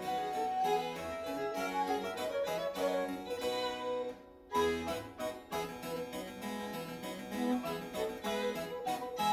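Harpsichord music playing a quick run of plucked notes, breaking off briefly about four seconds in and then resuming.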